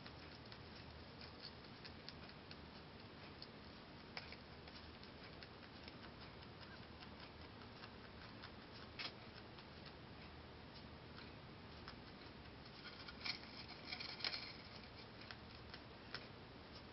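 Holland lop rabbit chewing timothy hay: a faint, fast crackle of small crunching clicks, with a few louder crunches near the end.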